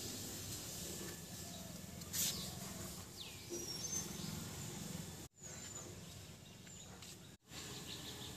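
Faint outdoor ambience with a few short, high bird chirps and one falling whistled call near the middle. The sound drops out completely twice, briefly.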